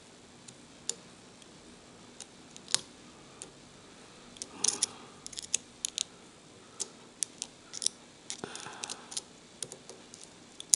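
Lock pick and tension wrench single-pin picking a padlock's pins: irregular sharp metallic clicks inside the lock, with clusters of rapid clicking about halfway through and again near the end.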